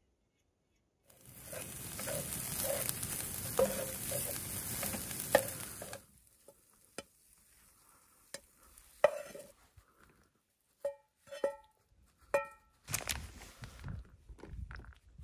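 Scrambled eggs sizzling in a frying pan as a spatula stirs them. About halfway through the sizzle stops, and the spatula scrapes the eggs out and knocks against the metal pan, which rings out with several taps.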